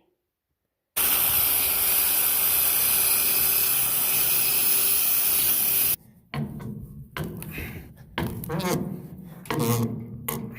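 Power drill running steadily at constant speed for about five seconds, boring a hole into wood, then stopping abruptly. Afterwards come scattered short knocks and a few brief voice-like sounds.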